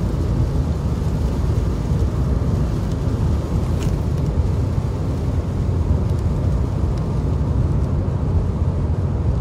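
Steady low rumble of a car driving at expressway speed, heard from inside the cabin, with road and tyre noise from the wet road surface.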